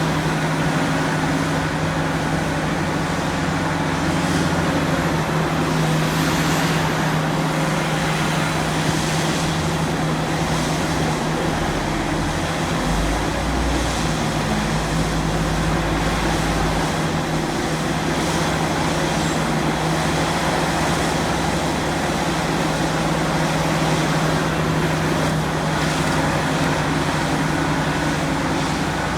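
Diesel engine of heavy earthmoving machinery running steadily, a constant low hum over broad mechanical noise. A deeper low note swells in for a few seconds about thirteen seconds in.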